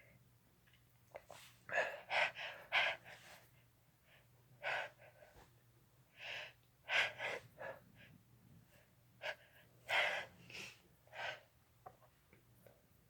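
A person's sharp, catching gasps and wheezy breaths coming in repeated clusters: the build-up of a sneeze that has not yet come out.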